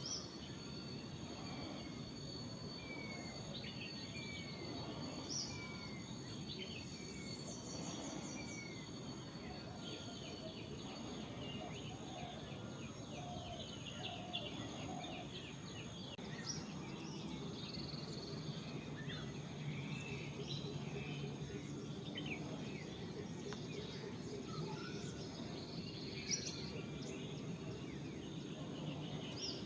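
Forest ambience: many small birds chirping and giving short descending whistles, over a steady thin high insect drone, part of which stops about a third of the way through.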